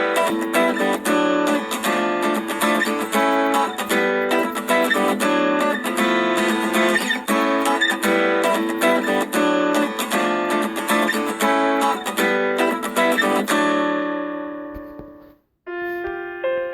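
Samsung Galaxy S5 ringtone: a quick plucked-guitar melody that stops about 13 seconds in, its last note ringing out. A different tone starts just before the end.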